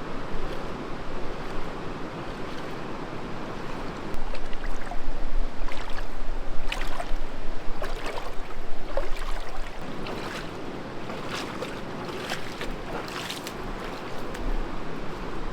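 Steady rushing of river water, growing louder about four seconds in, with a run of short, sharp knocks or splashes over it.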